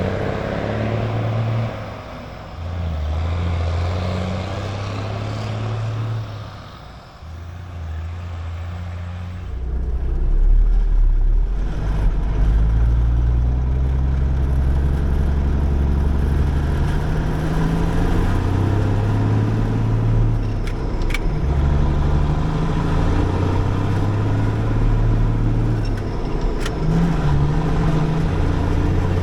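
International Eagle semi truck's diesel engine pulling under way, its pitch rising and dropping in steps as it works through the gears, louder and deeper from about ten seconds in.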